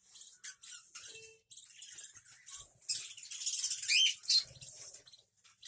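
Budgerigars chirping and chattering in a colony, short high calls overlapping, with a few sweeping calls about four seconds in.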